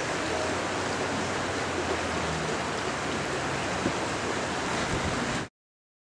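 Steady rush of river water, cutting off abruptly about five and a half seconds in.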